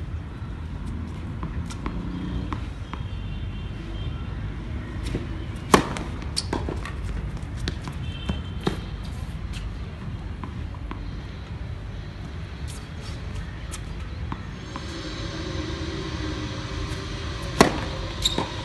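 Tennis rackets striking the ball on a hard court: a few sharp hits spread seconds apart, the loudest about six seconds in and again near the end, over a steady low background rumble.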